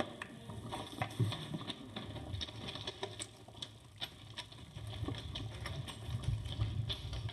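Footsteps on the gravel ballast and ties of a subway track: a quick, irregular run of crunches and clicks. A low rumble joins in about halfway through.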